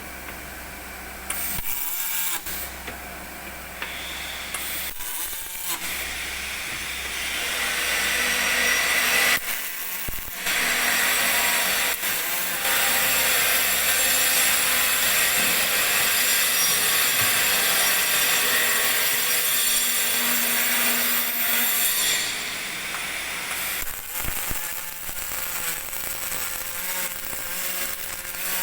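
Welding arc on a boat's main deck, a steady hissing crackle: several short stop-start runs, then one long continuous bead lasting about fifteen seconds that stops abruptly, followed by quieter, uneven noise.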